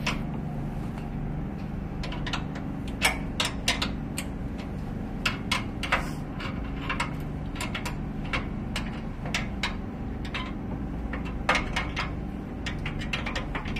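Metal clinks and taps of a wrench working bolts on a steel machine frame, coming in short irregular clusters of a few clicks, over a steady low hum.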